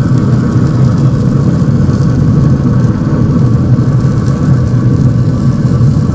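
Steady low mechanical hum of a running motor, even and unbroken throughout.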